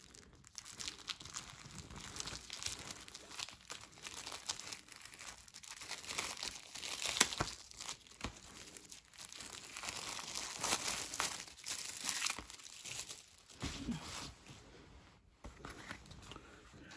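Thin plastic shrink wrap crinkling and tearing as it is peeled off a Blu-ray case by hand, in irregular crackles that are busiest near the middle and thin out toward the end.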